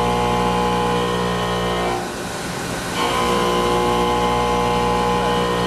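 5-axis CNC milling cutter cutting a titanium alloy (Ti-6Al-4V) part under flood coolant, a steady multi-tone whine over the hiss of coolant spray. The whine drops out for about a second around two seconds in, leaving only the coolant noise, then comes back unchanged.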